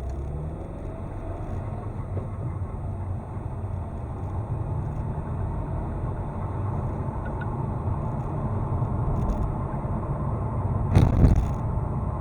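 Car driving under throttle, its low hum growing slowly louder: the hum under acceleration that the owner is trying to trace. A single sharp thump about eleven seconds in.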